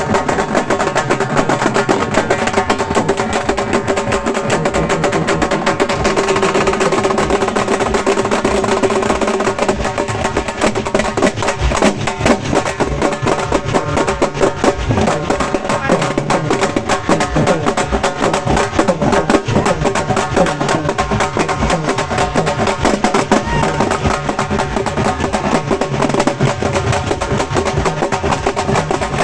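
Halgi frame drums beaten with sticks in a fast, dense rhythm by a drumming troupe, with steady held notes from a melodic instrument sounding under the strokes.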